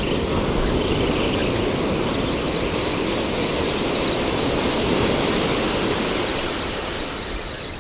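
Ocean surf breaking and washing up the beach, a steady rushing roar that eases slightly near the end.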